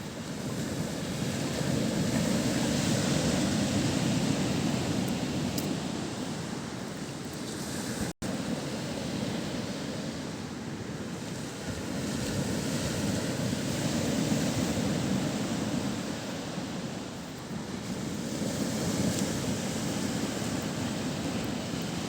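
Mediterranean surf washing onto the shore, the rush of the waves swelling and ebbing every few seconds, with a brief break in the sound about eight seconds in.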